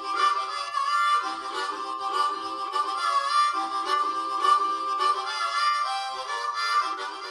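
Title-card theme music led by a harmonica, playing held notes over chords.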